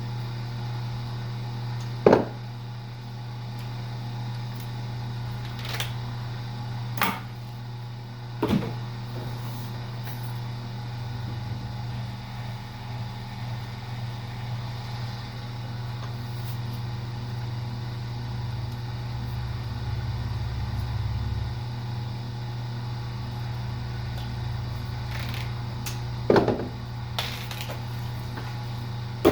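Co-Z electric wire stripping machine running with a steady motor hum as wire is fed through it, with a few sharp knocks and clacks about 2, 6, 7, 8 and 26 seconds in.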